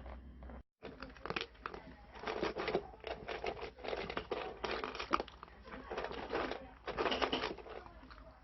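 Crinkling and rustling in irregular bursts, after a brief dropout of all sound just under a second in.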